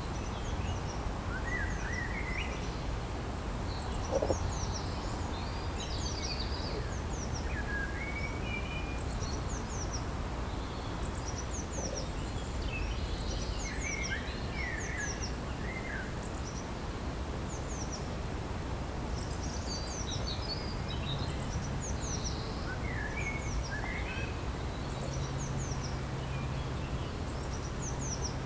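Wild birds chirping and singing in short, scattered phrases over a steady low rumble of outdoor background noise. A steady low hum joins about two-thirds of the way through.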